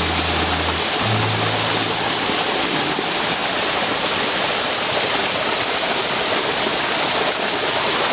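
Waterfall rushing in a steady, loud wash of falling water. Low background music notes sound under it for the first couple of seconds, then stop.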